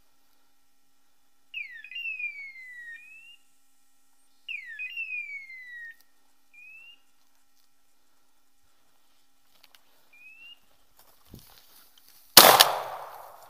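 A hunting dog's beeper collar sounding its point signal: a falling whistle-like chirp with a short rising note after it, given twice about three seconds apart, with single short rising notes later. Near the end, one loud shotgun shot that rings off for about a second.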